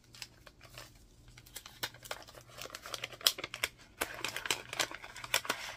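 Crinkling and rustling of a vellum sticker bag and the sticker sheets inside it being handled. The crackling grows busier and louder through the second half.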